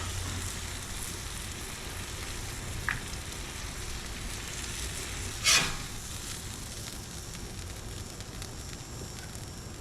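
Chopped ribeye, vegetables and provolone sizzling on a Blackstone flat-top griddle, a steady frying hiss, with one brief louder scrape about five and a half seconds in as the filling is scooped up.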